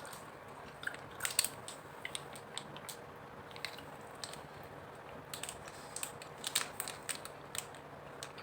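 Chewing a small gummy candy close to the microphone: irregular, faint little clicks from the mouth.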